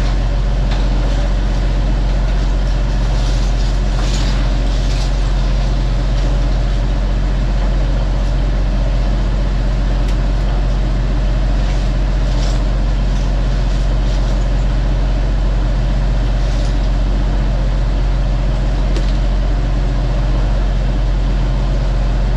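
Fishing trawler's diesel engine running steadily, a loud low drone, with a few faint clicks and knocks over it.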